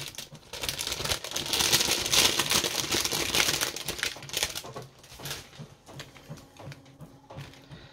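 Crinkling plastic packaging and small plastic jars of embossing powder being handled, with many quick clicks and rustles, busiest in the first half and fainter from about halfway on.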